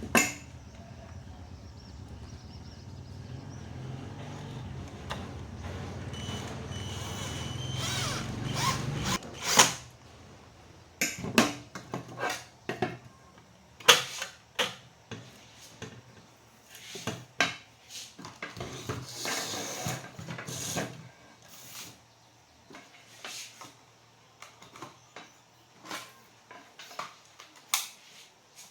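Tools and metal parts clicking and knocking in short irregular taps, as in hands-on work on a welding machine. A low steady hum runs under the first nine seconds or so, then stops.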